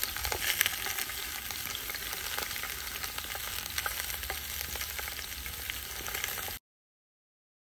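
Chuck roast sizzling as it sears in cast iron camp Dutch ovens, a steady hiss with scattered pops and crackles. The sound cuts off suddenly about six and a half seconds in.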